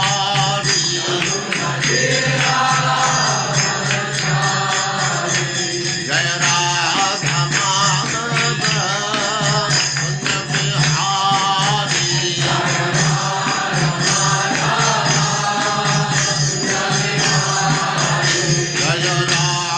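Devotional chant sung to instrumental music over a steady low drone.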